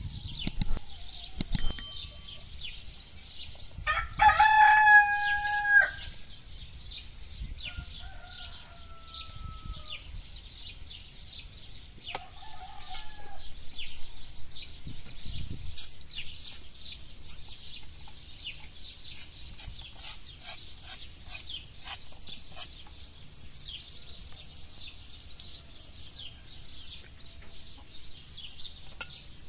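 A rooster crows once, close and loud, about four seconds in, and fainter crowing calls follow a few seconds later. Small birds chirp steadily throughout.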